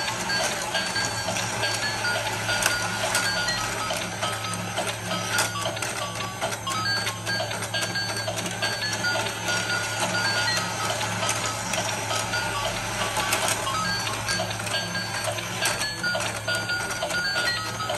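Penguin slide toy running: a tinny electronic tune of short beeping notes plays from its speaker over the steady hum of its motor and the clicking of the moving plastic staircase.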